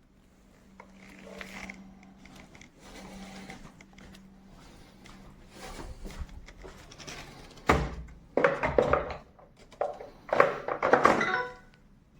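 Handling noises: faint rustling, then a run of loud thunks and clattering knocks in the last few seconds.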